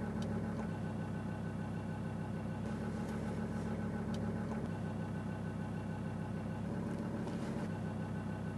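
Mazda BT-50 ute idling, heard from inside the cab: a steady low engine hum with the cabin in its stock state before sound deadening. Near the end it changes to the same idle after sound deadening has been fitted.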